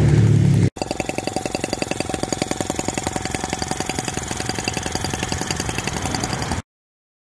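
Model four-stroke gas engine of a Microcosm T16 scale tractor running at a fast, even beat, its firing heard as rapid regular pulses. It follows a brief louder low drone that cuts off under a second in, and the sound stops abruptly near the end.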